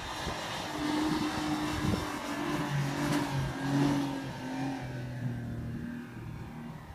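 Off-road 4x4's engine revving as it drives across soft sand dunes, its pitch shifting up and down in steps. It is loudest about three to four seconds in and fades near the end.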